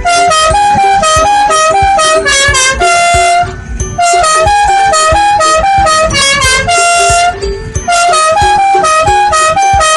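Musical vehicle horn playing a short tune of quick, buzzy notes. The phrase sounds three times with brief gaps between.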